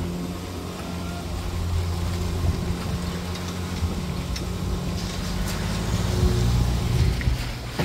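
Steady low mechanical hum, growing a little louder near the end, with a few faint clicks about midway.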